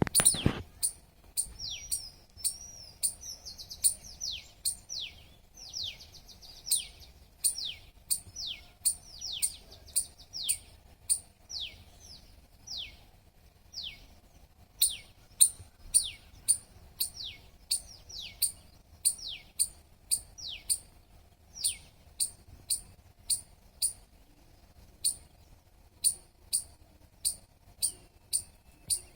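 A squirrel chirping over and over: short, sharp calls, each a quick downward-sliding note, kept up at about two a second. The first few calls are longer and waver.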